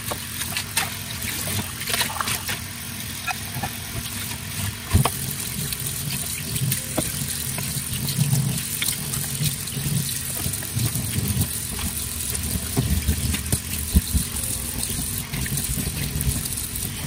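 Tap water running steadily into a sink as ceramic cat bowls are rinsed and handled under it, with a few sharp clinks of ceramic against the sink.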